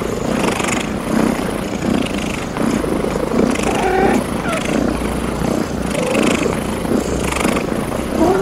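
Cats purring, a steady rough rumble that pulses evenly about every half second or so.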